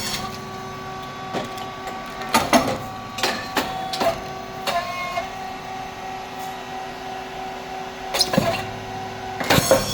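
SYP5804T rice cake popping machine running a production cycle: a steady motor and hydraulic hum with several sharp pops and clatters as the heated moulds release the puffed rice chips.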